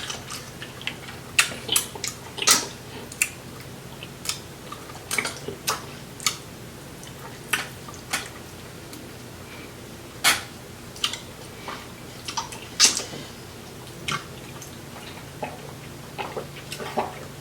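Close-miked eating of sauce-coated seafood: irregular wet smacks, clicks and chewing sounds, over a faint steady low hum.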